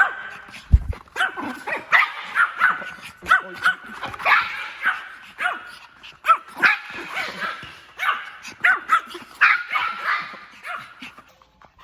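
A dog barking over and over in short, quick barks, in a frightened, agitated run. There is a single low thump about a second in.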